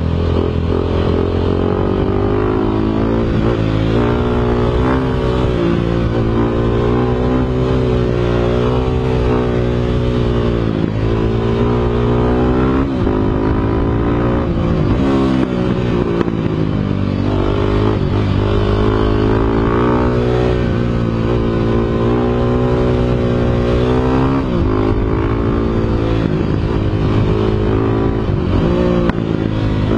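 Motorcycle engine running hard and continuously. Its pitch climbs and falls back every few seconds as the revs rise and drop.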